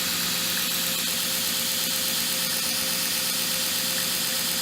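Shop-built belt grinder running with no work against the belt: its 2 hp Leeson three-phase motor, fed by a VFD, hums steadily under the hiss of the abrasive belt running over its wheels.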